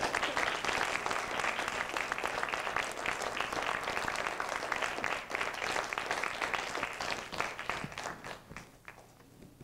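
Audience applauding, a dense steady clatter of many hands that thins out and fades away near the end.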